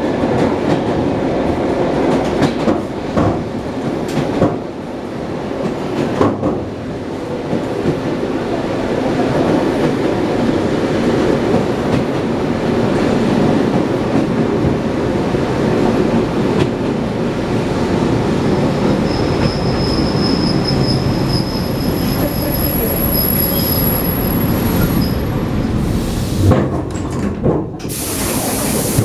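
ED9M electric train running at speed, heard from inside the car: steady wheel and rail rumble with clacks over the rail joints in the first few seconds. About two-thirds through a thin, high squeal comes in for several seconds. A loud rush of noise near the end.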